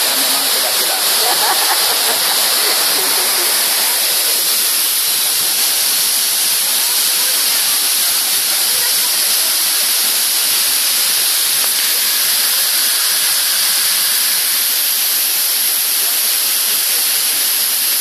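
Waterfall, two tall strands of water plunging down a cliff, giving a loud, steady, unbroken rush.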